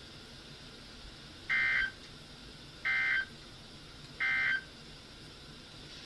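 NOAA Weather Radio SAME end-of-message data bursts played through weather radio receivers: three short, identical warbling digital bursts about a second and a half apart, marking the end of the Required Weekly Test message.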